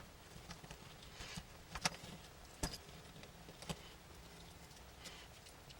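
Small, sharp clicks and taps from tools and small plastic and metal camera-lens parts being handled on a work surface, about five irregularly spaced, the clearest near two seconds and just before three.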